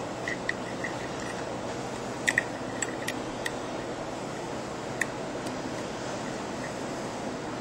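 Small sharp clicks and taps of hands fitting electrical wiring onto a flat-plate stainless steel electrolyzer cell, a cluster of them a couple of seconds in and one more about five seconds in, over a steady background hiss.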